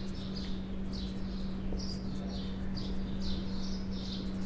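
Marker pen squeaking on a whiteboard in short strokes, about two or three squeaks a second, over a steady low hum.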